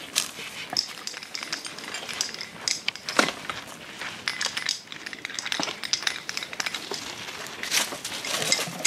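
Irregular crackling and crunching of plastic garbage bags being filled and carried, with footsteps on gravel.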